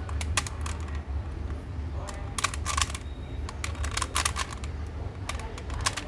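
3x3 Latch Cube twisty puzzle being turned to scramble it: irregular bunches of sharp plastic clicks as its layers are twisted, busiest a little after the middle and again near the end.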